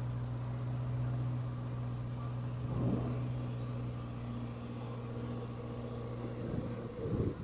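A car driving along a grassy track, its engine giving a steady low drone. There are two brief louder rushes, about three seconds in and again near the end.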